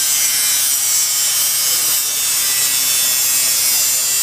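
Power tool cutting into a steel U-lock: a steady, high-pitched grinding hiss with no break.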